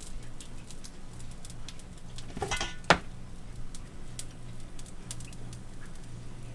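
Food frying in hot butter in a pan, a steady fine sizzle and crackle. A short, louder clatter about two and a half seconds in.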